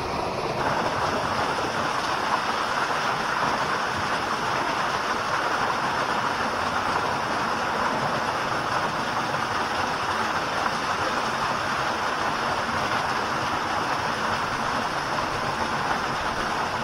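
Small mountain waterfall splashing steadily: a dense, unbroken rush of falling water.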